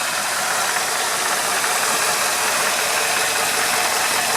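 The 1978 Ford Mustang II King Cobra's carbureted 302 (5-litre) V8 running steadily at idle.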